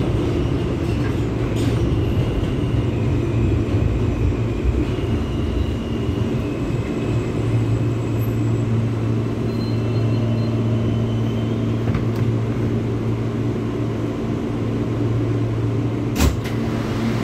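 Inside an R160 New York subway car running and slowing into a station: a steady low rumble of wheels and traction motors, settling into a steady hum, with faint high whines in the first few seconds. A single sharp click comes near the end.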